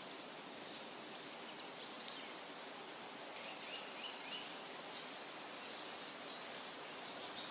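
Faint outdoor nature ambience: a steady hiss with a thin, high, unbroken tone and a few short, faint, high chirps about three seconds in.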